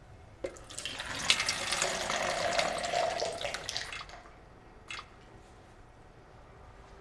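Water running and splashing for about three and a half seconds, then stopping, followed by a single short click.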